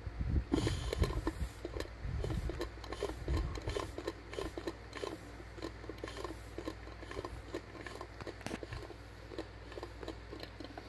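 Irregular light clicks and taps from the metal zero-pressure regulator being handled, with a few heavier low knocks in the first two seconds, over a steady low hum.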